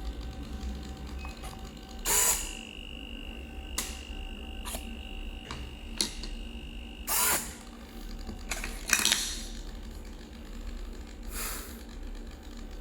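Electronic smart door lock being worked with a card: a steady high beep held for about five seconds with sharp clicks over it, and several short noisy bursts over a low hum.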